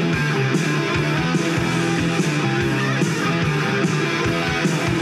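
Rock music with guitar over a steady beat, played back through a loudspeaker in the room.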